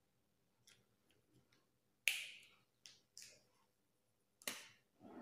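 A few faint, sharp clicks and taps of a pen being handled, the loudest about two seconds in and another near the end.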